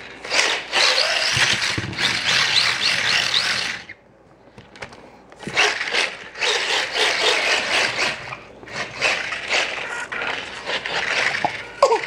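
Micro RC car driving, with its small electric motor whining up and down and its tyres scrubbing on a smooth floor as it drifts and spins donuts, in two runs with a short pause between them.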